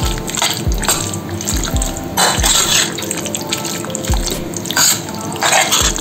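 Background music with a steady beat, over a spoon stirring and scraping chicken and masala as it sizzles in a pressure cooker pot. The masala is being fried until the oil separates.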